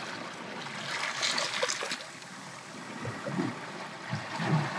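Shallow seawater trickling and sloshing as a hand reaches into it to grab a shrimp, with a little splashing about a second in.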